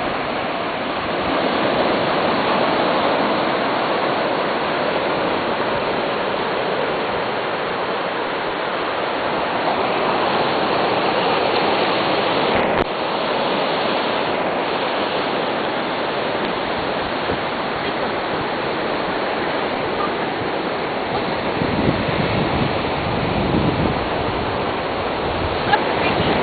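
Steady wash of small surf breaking on a sandy beach, with a brief click about thirteen seconds in.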